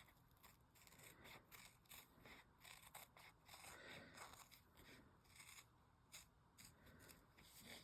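Faint, irregular snips of scissors cutting around an embroidered fabric strap connector along its stitch line.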